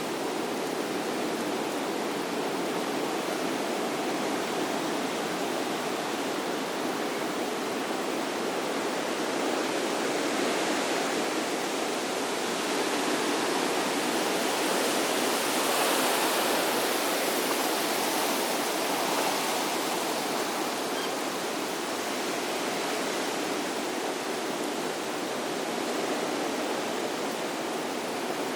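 Running water rushing steadily, swelling louder and brighter for several seconds in the middle.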